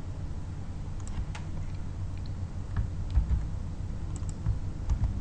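A few scattered keystrokes on a computer keyboard, single clicks spread through the stretch, over a steady low hum.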